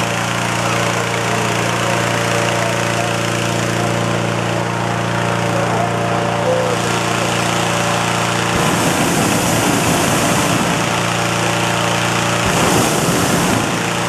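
Hot-air balloon inflator fan running steadily on its small engine, blowing air into the envelope. Twice, about two-thirds of the way in and again near the end, the balloon burner fires, adding a rushing blast of flame.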